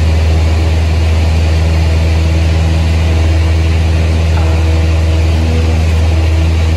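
Cessna 172's piston engine and propeller at takeoff power, heard from inside the cockpit: a loud, steady low drone at constant pitch.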